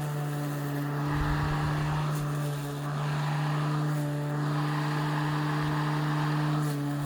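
Ryobi ONE+ 13-inch cordless electric lawn mower running steadily, an even motor-and-blade hum at one constant pitch. A few low bumps come in between about one and two seconds in.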